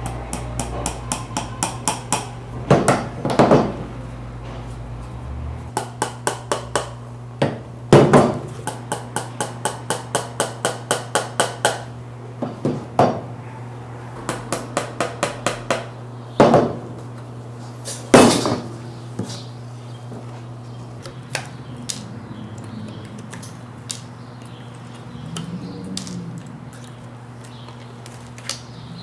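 Hammer head of shoemaker's lasting pliers tapping small tacks through material into a plastic shoe last: runs of quick light taps, about four or five a second, with a few heavier single knocks.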